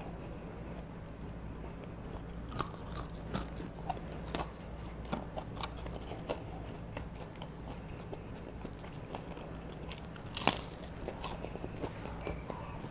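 Close-up eating sounds of McDonald's chicken nuggets: crisp bites and wet chewing, broken by scattered sharp clicks, the loudest about ten seconds in, over a steady low hum.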